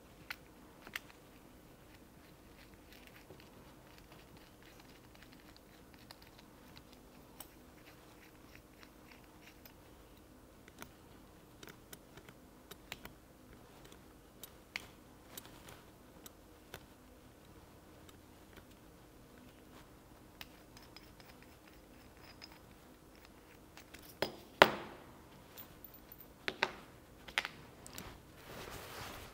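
Faint, scattered clicks and taps of a small metal hand tool and end mills being handled on a cutting mat, with a few louder clicks and knocks in the last five seconds.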